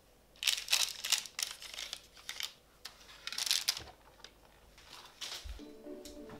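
Parchment baking paper rustling and crinkling in several short bursts as hands straighten it on a baking tray. Soft music comes in near the end.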